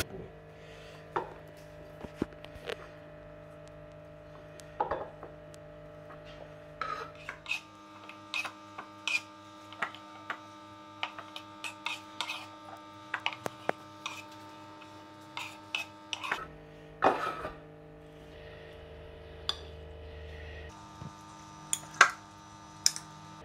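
A knife scraping chopped vegetables off a wooden chopping board into a glass bowl, with scattered taps, scrapes and pieces dropping, over a steady hum. Near the end a spoon knocks against the glass bowl as the mixture is stirred.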